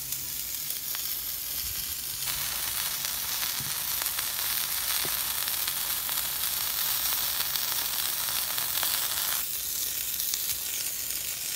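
Block of raw ground beef sizzling on a hot Blackstone flat-top griddle: a steady frying hiss that grows fuller about two seconds in and eases back near the end.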